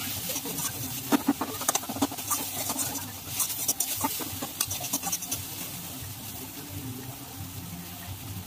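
Metal spatula scraping and clinking against a steel kadai as food is stirred, with irregular sharp clicks over the first five seconds or so, then sparser, over a steady hiss.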